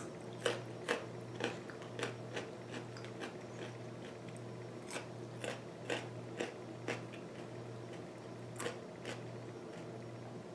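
A person chewing crunchy food close to the microphone: short crisp crunches, about two a second, coming in runs with brief pauses.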